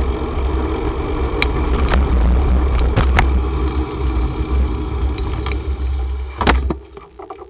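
Wind rumbling on the microphone and road noise from a moving bicycle, with scattered sharp clicks and rattles. The sound drops off sharply near the end.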